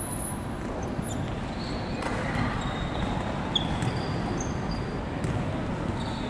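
Indoor volleyball practice: a volleyball being hit and bouncing on the court, with a few short shoe squeaks on the sport-tile floor, over a steady hall din.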